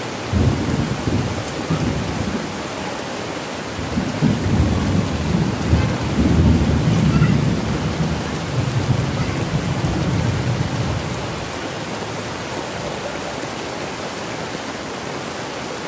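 Heavy rain falling steadily on a paved street. A low rumble swells briefly about a second in, then again from about four seconds in and fades out after about eleven seconds.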